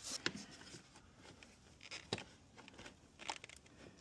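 Faint rustling and handling noise, with a few sharp plastic clicks as floor-mat retaining clips are pried up and popped out. The clicks come about a third of a second in, around two seconds in and just past three seconds.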